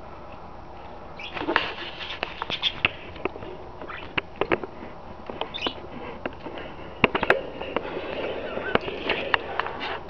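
Pet budgerigars in a cage chattering softly in short high chirps, mixed with many sharp clicks and taps, the loudest pair about seven seconds in.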